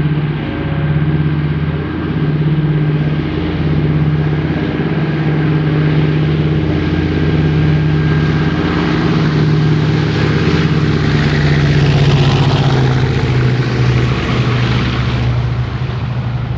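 Douglas DC-3 Dakota's twin radial piston engines and propellers running as the aircraft rolls along the runway and passes close by: a steady, pulsing low drone, with a rushing propeller noise that swells past the middle and then eases as it moves away.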